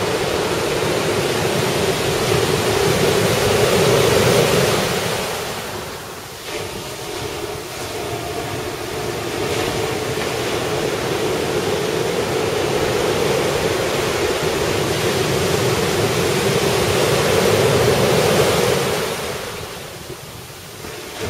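Ocean surf washing onto the beach under a typhoon-driven swell: a loud, steady rush that builds to a peak about four seconds in, drops away, then builds again to a second peak near the end.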